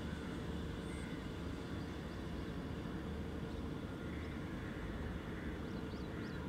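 Boat engine running steadily, an even drone. A few faint bird chirps come in near the end.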